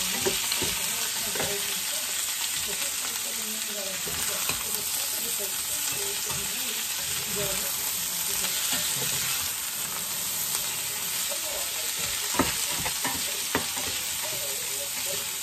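Potatoes, onions and bell peppers frying in a cast iron skillet with a steady sizzle. A metal spatula scrapes and taps the pan as the food is stirred, with a couple of sharper knocks about twelve seconds in.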